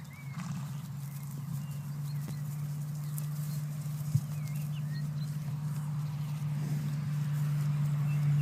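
Outdoor meadow sound: small birds chirping in short calls over a steady low hum that grows gradually louder.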